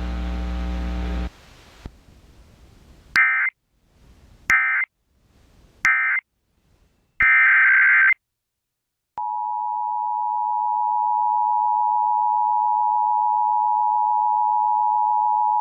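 Emergency Alert System audio: three short bursts of screechy SAME digital data tones about a second and a half apart, the end-of-message code, then a longer data burst. After a second of silence the steady two-tone EAS attention signal starts and holds, announcing the next alert. A low hum is heard briefly at the start.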